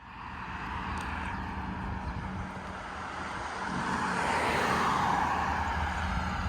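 Road traffic: a vehicle passes close by, its tyre and engine noise swelling to a peak about four to five seconds in, over a steady low engine drone.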